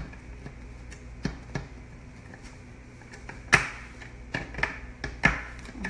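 A series of sharp plastic clacks and knocks, the loudest about three and a half seconds in, from a Pampered Chef Quick Slicer being worked by hand to slice strawberries.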